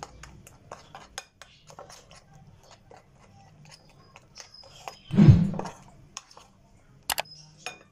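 Spoon stirring thick gram-flour batter in a ceramic plate, with light clicks and scrapes of the spoon against the plate. About five seconds in comes a single louder thump.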